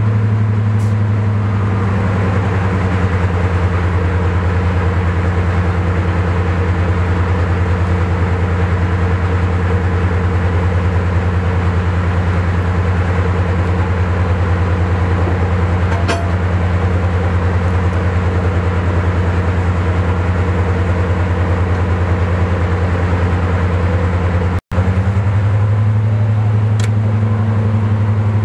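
Class 55 Deltic locomotive 55002 idling at a standstill, its Napier Deltic two-stroke diesel engines running with a steady deep drone. The sound breaks off for an instant about 25 seconds in, then resumes.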